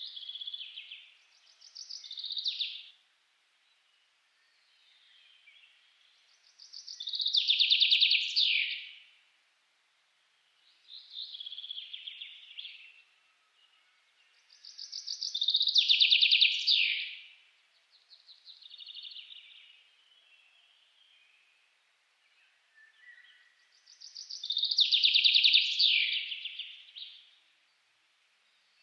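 A songbird singing the same rapid trilled phrase over and over. Each phrase lasts about two to three seconds and drops in pitch at the end. Loud phrases come about every eight or nine seconds, with quieter, more distant-sounding phrases in between.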